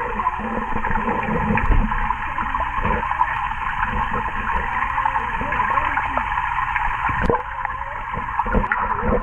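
Muffled underwater sound of swimming-pool water heard through a submerged waterproof camera housing: a steady low rumble and churning water, with a brief drop in level about seven seconds in.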